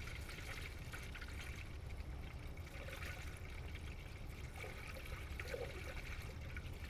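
Undiluted BMW antifreeze pouring steadily from a plastic gallon jug into a plastic coolant funnel: a continuous trickling stream of liquid.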